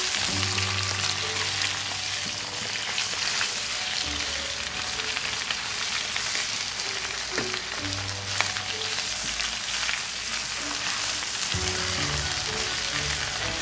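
Raw chicken pieces sizzling in hot ghee in a nonstick wok as they are stirred with a spatula, a steady frying hiss with a few clicks of the spatula, at the start of browning until the meat changes colour. Background music plays underneath.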